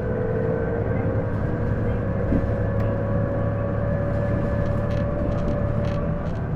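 Inside an Isuzu Erga (PJ-LV234L1) city bus under way: a steady engine and road drone, with a whine that climbs slowly in pitch as the bus accelerates and fades out near the end. This whine comes with every acceleration on this bus; the owner likens it to an automatic-gearbox whine and suspects the transmission.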